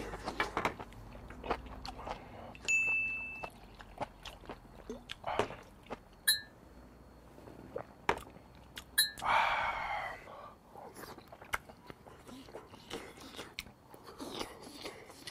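Close-up eating sounds: chewing and slurping of beef and tripe hot pot, with many short sharp clicks. About nine seconds in, soju is poured from a bottle into a shot glass for about a second.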